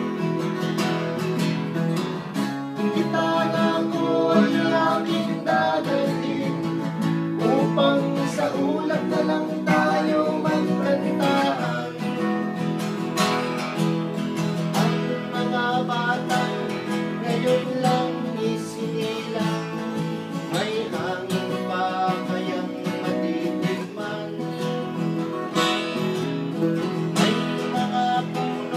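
Folk song played on strummed acoustic guitar, a steady rhythmic strum under the melody.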